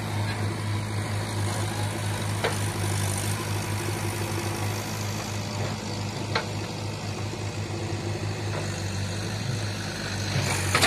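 A tractor engine running at a steady speed, a constant low hum heard up close. Two sharp clicks come through, about two and a half and six and a half seconds in.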